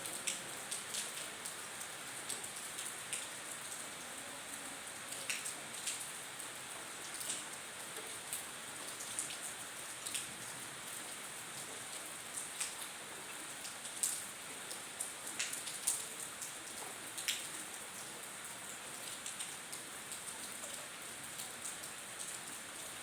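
Heavy monsoon rain falling steadily: a constant hiss with irregular sharp taps of individual drops striking a nearby surface.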